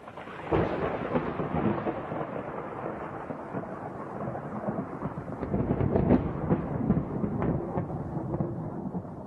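Thunder rumbling continuously, with a sharp crack about half a second in and several crackling strikes later on, the loudest around six seconds in.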